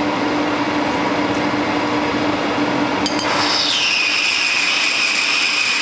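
Manual metal lathe running while turning a part. About three seconds in there is a click, then a high whine sets in, falls in pitch and holds steady.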